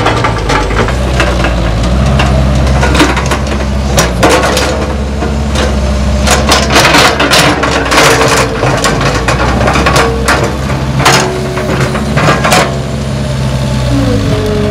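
CAT 312B tracked excavator's diesel engine running under hydraulic load, its note rising about two seconds in, while the bucket digs into wet clay soil with a run of knocks and cracks of steel and breaking clods.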